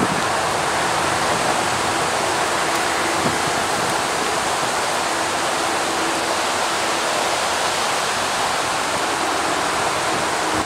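Steady rushing wind noise on the microphone. From about halfway in, a faint steady hum sounds under it from the approaching Metro-North diesel locomotive.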